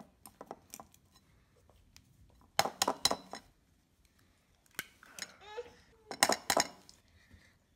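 A metal fork clinking and scraping against a glass bowl as bananas are mashed, in scattered clicks and two clusters of sharp clinks, with an egg tapped on the bowl and cracked into the mash.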